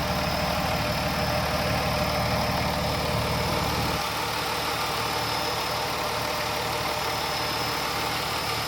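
2008 Dodge Nitro's 3.7-litre V6 engine idling steadily under the hood, running smoothly on a shorter bypass belt with the seized AC compressor taken out of the belt path. Its low rumble weakens about four seconds in.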